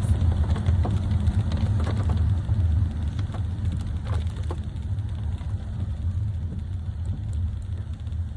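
A car driving on a rough, broken road: a steady low engine and road rumble, with a few faint knocks scattered through it.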